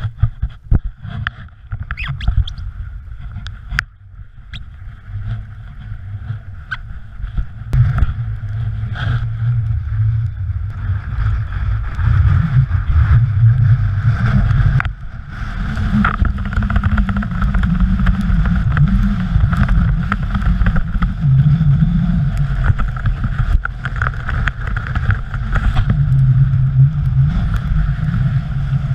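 Strong wind buffeting a GoPro Hero3 camera's microphone: a loud, gusting low rumble that grows stronger after about eight seconds. Scattered knocks and scrapes come through, mostly in the first few seconds.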